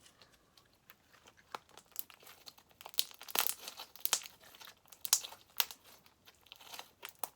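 Homemade glue slime being stretched and squished by hand, giving irregular crackles and small pops as trapped air bubbles burst.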